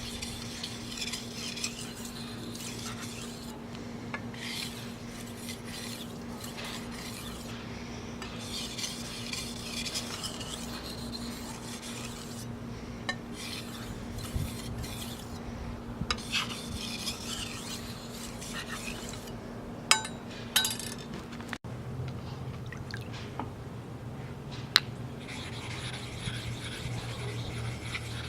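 Knife blade being stroked across a wet Shapton Pro whetstone: repeated spells of gritty scraping with short pauses between them, and a few sharp clicks about two-thirds in. A low steady hum runs underneath.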